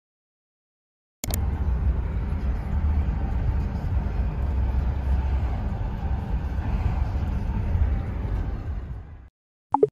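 Car cabin noise while driving: a steady low rumble of engine and tyres on the road. It starts abruptly about a second in and cuts off near the end.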